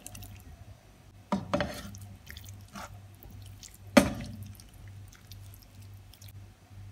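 Drained pasta tipped into a hot frying pan and stirred with a wooden spatula: wet sliding and dripping with scattered knocks and clatters, the loudest a sharp knock about four seconds in. A low steady hum runs underneath.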